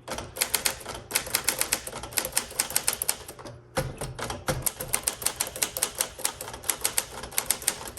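Typing at a steady pace on a 1959 Smith-Corona Sterling manual portable typewriter, the typebars clacking against the platen several times a second, with a short pause about three and a half seconds in.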